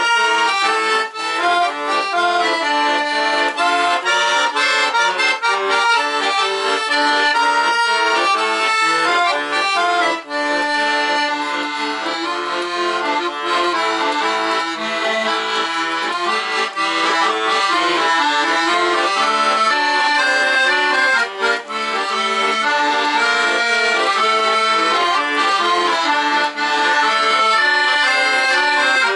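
Solo Weltmeister button accordion playing a wartime song: a melody with chords, played without a break.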